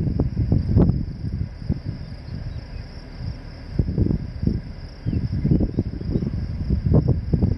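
Crickets chirping steadily, under gusts of wind buffeting the microphone with low rumbles that rise and fall in surges. The gusts are strongest near the start, about halfway through and near the end.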